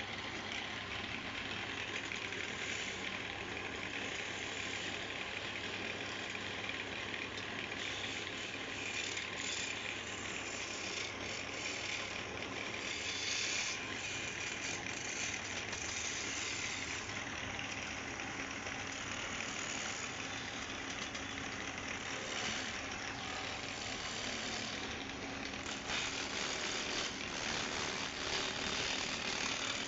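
Wood lathe running steadily, a motor hum under a broad hiss, growing a little louder and rougher near the end.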